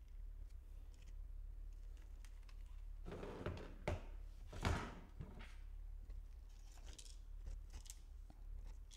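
Faint handling noise of plastic hand-held input-device prototypes: scraping and a few knocks about halfway through as one is set down on the desk, then small clicks as another is picked up, over a low steady hum.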